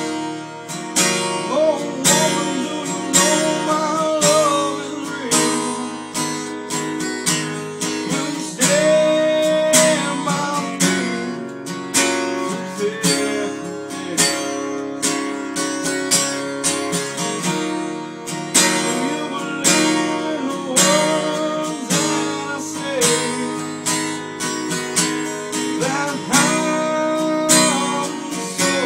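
Steel-string acoustic guitar strummed in a steady rhythm, with a man's singing voice over it at times.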